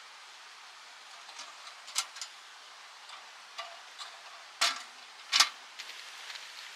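A few sharp clicks and knocks over a steady soft hiss, the two loudest under a second apart just past the middle.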